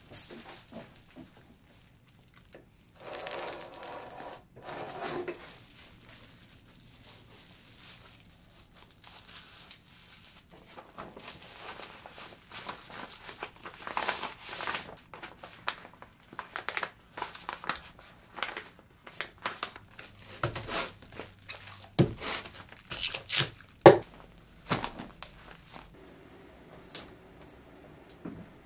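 Bubble wrap and a cardboard mailer being handled while a book is wrapped and packed: crinkling and rustling plastic, with a run of sharp crackles and snaps, loudest about 22 to 25 seconds in.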